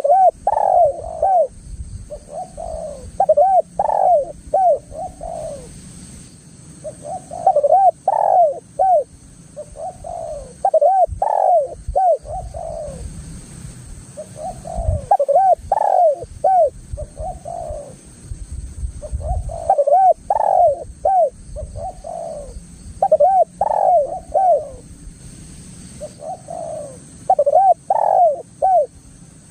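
Spotted dove (tekukur) cooing over and over, each phrase a quick run of several coo notes, repeated about every three to four seconds.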